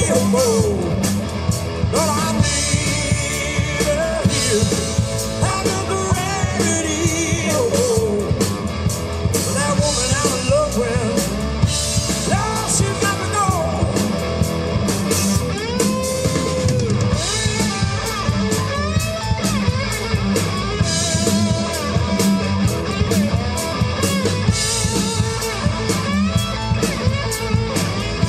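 Live rock band playing a Southern rock song on electric guitars, bass and drum kit, with singing over the steady drum beat.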